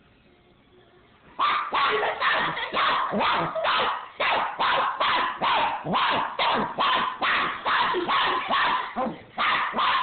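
Puppy barking in a fast, steady run, about three barks a second, starting about a second and a half in, at a toy remote-control car.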